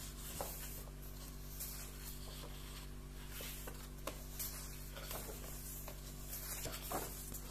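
Faint rustling and soft taps of magazine pages being handled and turned, over a steady low electrical hum.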